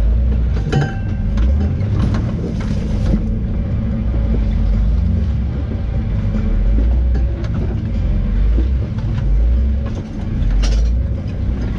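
Off-road vehicle engine running at low speed while crawling up a rocky trail, with a steady low rumble and occasional knocks and clatters from the rocks and chassis.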